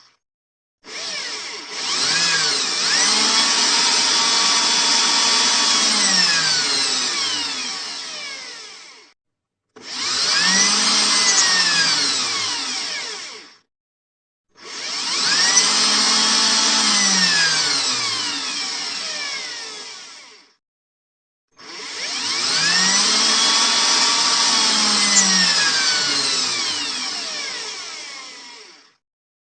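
Electric drill running in four bursts of several seconds each. Each time its motor spins up to speed and then winds back down, with short silences between the bursts.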